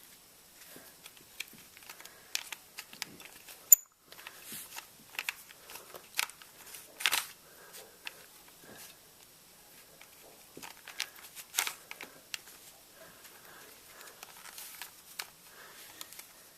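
Plastic clicks and rattles of a 3x3 Rubik's cube's layers being turned by hand, irregular clicks throughout. One much louder, sharp click about four seconds in.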